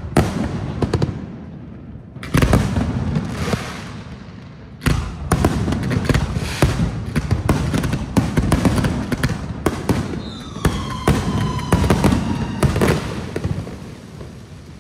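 Aerial fireworks going off in loud bangs: a burst at the start and another about two seconds in, then a dense, rapid barrage of shell bursts from about five seconds in. A couple of whistles glide down in pitch about eleven seconds in, and the barrage dies away near the end.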